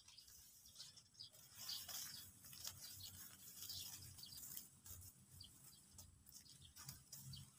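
Faint rustling and crackling of dry harvested rice straw and stubble as a sheaf of cut rice is carried across the field, with a few faint bird chirps.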